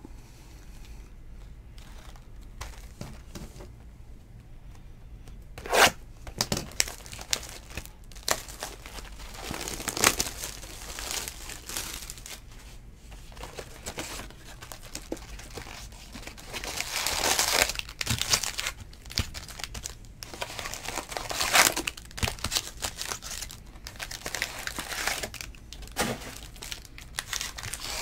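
Packaging of 2019 Topps Series 2 baseball cards being torn open and crinkled by hand: the box and its foil-wrapped packs. It comes as irregular rips and rustles, with the longest rip about seventeen seconds in.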